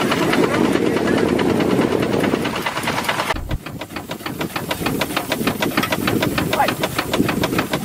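Small steam launch's engine running at a quick, even beat, with a hiss of steam. The sound changes abruptly about three and a half seconds in, and the beat is plainer after that.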